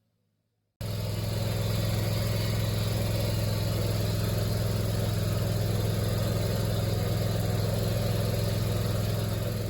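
Lawn tractor engine running at a steady speed, cutting in abruptly about a second in and holding an even drone with a strong low hum.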